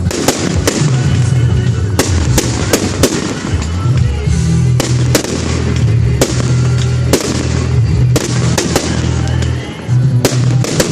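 Fireworks display: aerial shells bursting in a rapid string of sharp bangs, about one to two a second, over music playing through loudspeakers.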